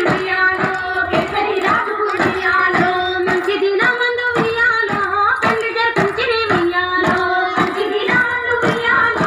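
A Bathukamma folk song with women's singing voices over steady hand claps that keep the beat, about two and a half claps a second.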